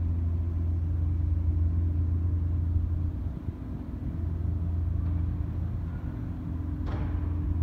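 Diesel engine of a small towing boat running steadily, a low drone as it pulls a loaded sediment barge. A single short knock sounds near the end.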